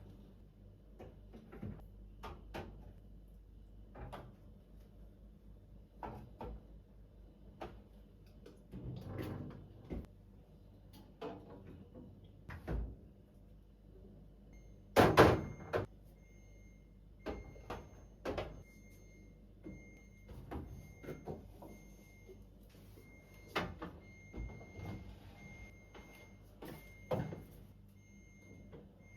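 Scattered clunks and knocks of food and containers being put away in a refrigerator, the loudest about halfway through. From then on a faint high beeping repeats.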